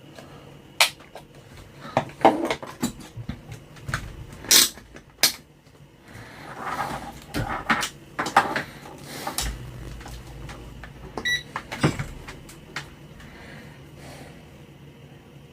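Scattered sharp clicks, taps and clatter of small parts and tools being handled on a workbench during transistor testing with a multimeter, with a short electronic beep about eleven seconds in.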